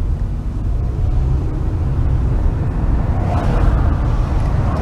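Steady low rumble of a car's engine and tyres on the road, heard from inside the moving car, with a hiss rising over it from about three seconds in.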